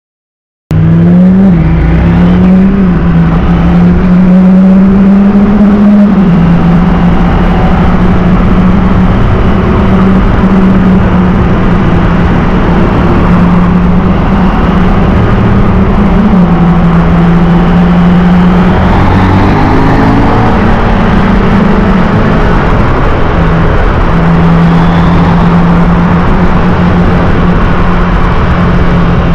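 KTM Duke 890 GP's parallel-twin engine running under way. It starts abruptly about a second in, holds a steady note, and steps up and down in pitch a few times with throttle and gear changes, over a constant rush of road and wind noise.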